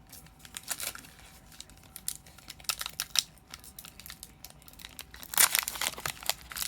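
Foil Pokémon booster pack wrapper crinkling in the hands with scattered sharp crackles, growing denser and louder about five seconds in as the pack is torn open.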